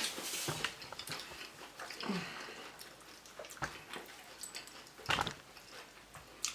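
Eating sounds from people chewing loaded nachos: soft chewing and mouth noises, with a few sharp clicks or crunches, the loudest about 3.6 and 5 seconds in.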